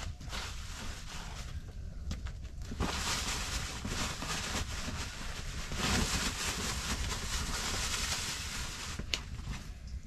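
A cloth sack with plastic inside rustling as it is rummaged through and vegetables are pulled out. The rustling grows loudest in the middle and later part, over a low steady rumble.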